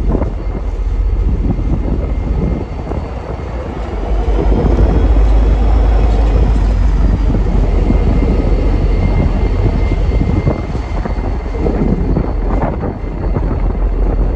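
An MBTA commuter rail diesel locomotive's engine running with a deep, steady rumble as it rolls slowly past, loudest midway through as it goes by. A faint high whine rises and falls over the middle, and a few knocks come near the end.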